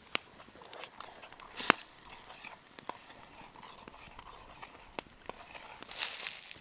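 Wood campfire crackling, with irregular sharp pops over a soft background hiss; the loudest pop comes a little under two seconds in.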